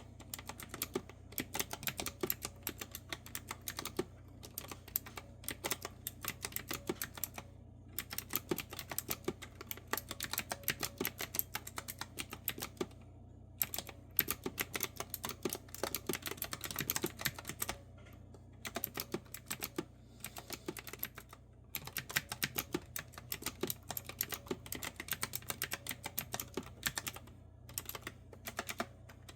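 Clicky retro-style keyboard with round keycaps being typed on in quick, even runs of keystrokes, with short pauses every few seconds.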